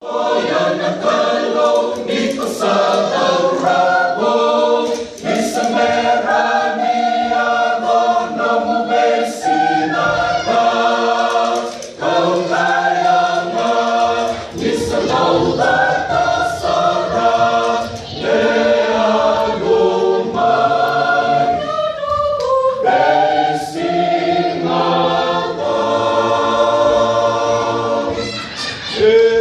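Mixed choir of women and men singing a hymn-like song in parts, unaccompanied, in sustained full chords. The phrases are broken by brief breaks, around five, twelve and eighteen seconds in.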